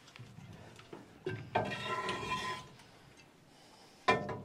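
Light metal knocks and clinks as the metal column of a Whitlock steering pedestal is slid down over its base, with a pitched ringing scrape for about a second starting about a second and a half in, and a louder knock near the end.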